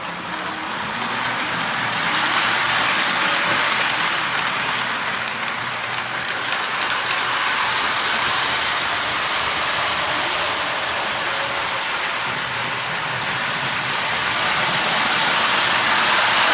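Lionel NASCAR toy train running on its track: a steady whirring rush of the locomotive's motor and wheels on the rails. It grows louder over the first couple of seconds and again near the end.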